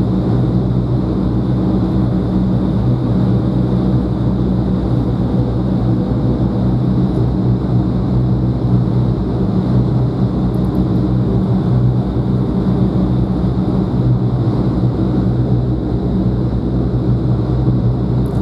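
Vertical wind tunnel running at flying speed: a loud, steady rush of air over a low, even fan hum.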